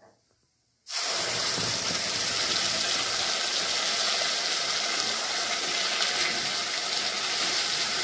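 Wet ground onion, garlic, ginger and chilli paste hitting hot oil in a kadhai: a sudden loud sizzle starts about a second in and keeps going steadily as the paste fries.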